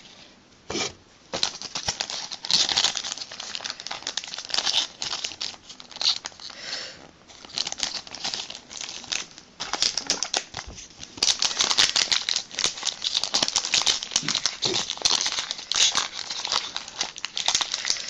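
Foil wrapper of a Pokémon booster pack crinkling and tearing as it is ripped open, a pack that opens roughly. The crinkling is patchy at first, then loud and continuous through the second half.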